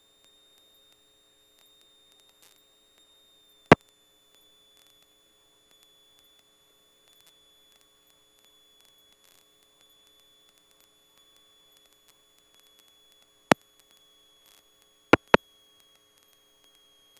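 Faint steady electronic whine and hum on an aircraft's radio and intercom audio feed, broken by sharp clicks: one about four seconds in, then three more between thirteen and fifteen seconds in, two of them close together. These are typical of radio squelch or mic-key clicks.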